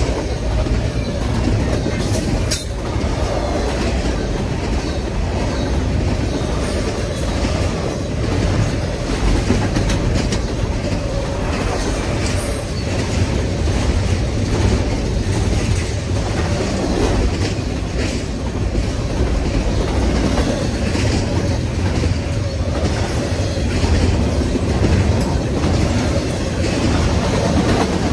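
Double-stack intermodal train's well cars rolling past close by: steel wheels on the rails give a steady low rumble with scattered sharp clicks.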